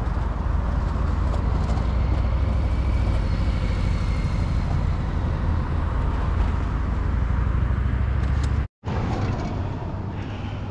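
Road traffic driving around a roundabout: a steady low rumble of passing cars. The sound cuts out for a split second near the end, then carries on a little quieter.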